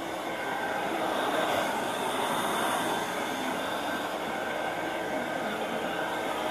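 A small electric motor comes on and runs steadily with an even, airy whirring noise.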